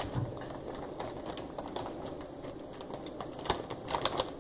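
Scattered light taps and clicks of things being handled close to the microphone, with a small cluster of them near the end.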